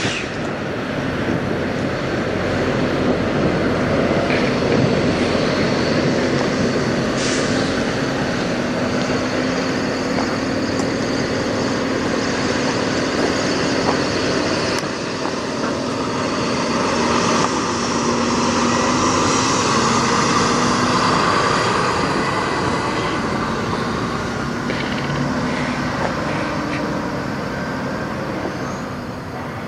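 Steady rumble and hiss of idling diesel semi trucks, with a faint steady hum, and a brighter rushing band swelling for several seconds about two-thirds of the way in.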